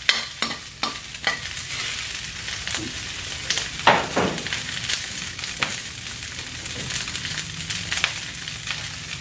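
Cubes of pork fat sizzling steadily in a wok as they render into oil, with scattered spits and pops. A few sharp metal clicks come in the first second or so, and a louder knock about four seconds in.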